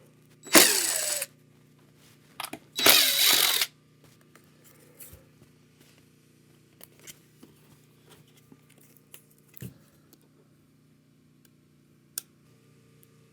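Cordless power driver run in two short bursts, backing out screws to remove the fender deletes from an electric skateboard, followed by faint clicks of handling parts.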